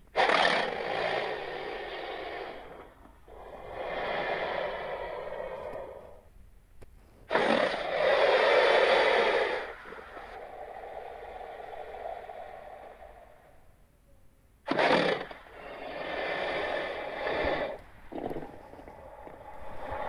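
Tyrannosaurus rex sound effects: a series of long, rasping roars and growls, each two to three seconds, with short gaps between them. The loudest comes about eight seconds in, and a short sharp one about fifteen seconds in starts the last group.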